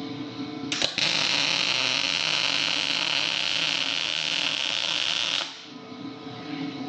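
MIG welding arc from a Lincoln 210 MP welder laying a weld on steel tube. A click about a second in, then a steady hiss that runs for about four and a half seconds and cuts off sharply when the trigger is released.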